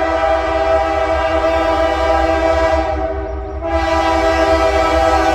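Norfolk Southern AC44C6M locomotive's air horn blowing a long chord, easing off briefly about three seconds in and then sounding full again, over a low rumble.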